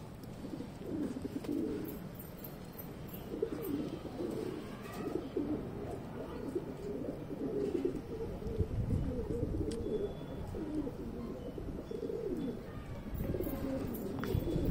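Domestic pigeons cooing over and over, low warbling coos.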